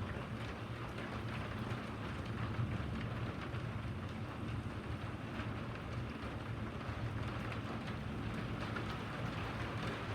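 Steady rain falling, with faint ticks of individual drops over an even hiss. A steady low rumble runs underneath.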